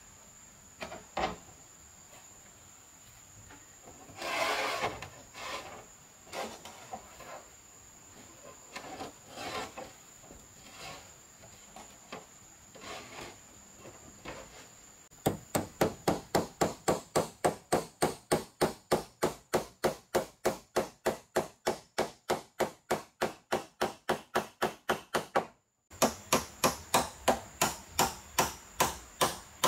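Hammering on a corrugated roof at the ridge. First come scattered knocks and a scrape as the sheeting is handled; about halfway in, fast, even hammer blows begin, about three a second, and keep on.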